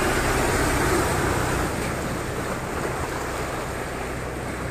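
An SUV driving through deep floodwater: its tyres push a bow wave and water splashes and rushes, with a low engine hum underneath. The sound is loudest in the first second or two, then eases to the wake sloshing and churning.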